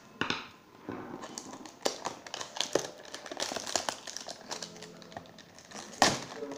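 Plastic wrap crinkling and crackling as hands handle a cellophane-wrapped pack on a wooden table, with scattered clicks and two sharp knocks, one just after the start and a louder one about six seconds in.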